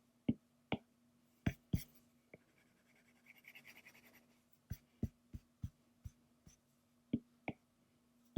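Colour pencil on sketchbook paper: a dozen or so short, sharp strokes at an irregular pace, with a stretch of steady scratching near the middle as the colour is laid down.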